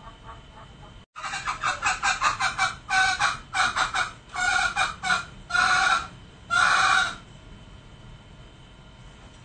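Male green junglefowl calling: a fast run of short clucking notes, then about five longer, louder crowing calls that stop about seven seconds in.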